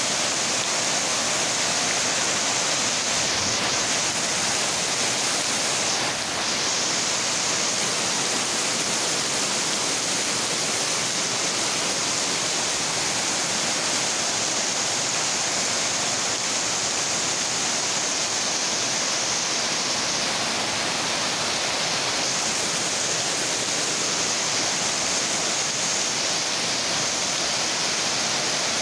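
Heavy rain falling in a steady, even downpour, with rainwater pouring off the edges of corrugated metal roofs.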